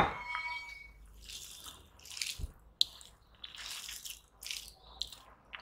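A small steel bowl clinks sharply on the table and rings briefly, then wet, sticky squelching of rice and desi ghee being mixed by hand, in short irregular bursts.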